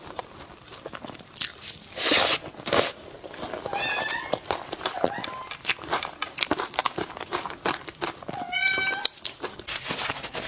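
A cat meows twice, two short calls a few seconds apart, among eating sounds: sharp clicks and crunchy bites.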